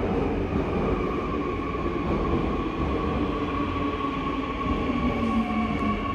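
Seoul Subway Line 2 electric train running through the station platform: a steady whine over a continuous low rumble, with a lower tone joining about five seconds in.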